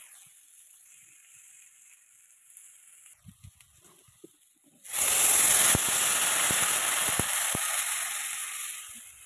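Water poured into a hot kadai of frying spiced vegetables. It bursts into a loud sizzle about five seconds in, which slowly dies down over the next four seconds. Before the pour there is a faint sizzle with a few light knocks.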